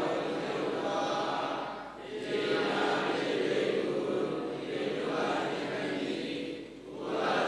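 Pāli scripture being chanted in long sustained phrases, with two short breaks between phrases, about two seconds in and near the end.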